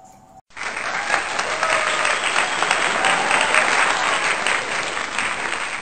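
A crowd applauding. The clapping starts abruptly about half a second in and goes on steadily.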